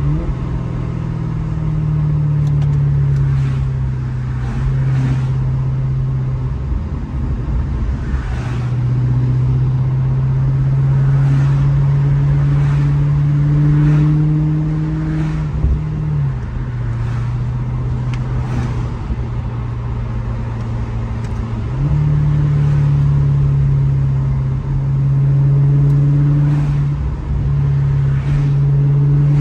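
Maserati GranTurismo's V8 running at a steady cruise. Its note drops about halfway through and comes back up a few seconds later.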